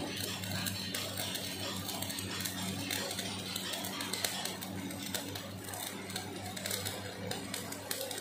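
Stick welding on steel: the electric arc crackles and sputters steadily, with a low electrical hum under it.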